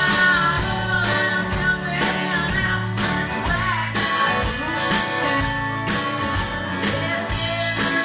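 Live country-rock song played by a band: a woman singing over strummed acoustic guitar and electric guitar, with a steady beat.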